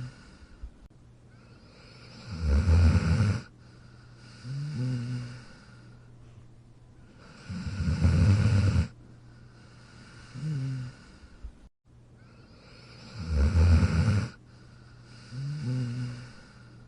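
Sleeping dog snoring in a steady rhythm. There are three long, loud snores, each followed about two seconds later by a shorter, quieter snore whose pitch bends up and down, and the pattern repeats about every five and a half seconds.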